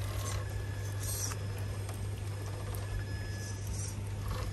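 An MST scale RC crawler's small electric motor and geared drivetrain whining softly as it creeps up wet rock, with a few short high chirps over it.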